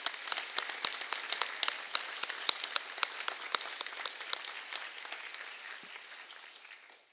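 Audience applauding: a dense patter of many hands clapping, with single sharp claps standing out close by, dying away near the end.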